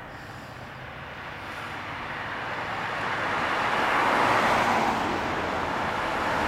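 Street traffic with a car passing close: its tyre and engine noise swells over a couple of seconds to a peak about four seconds in, then holds.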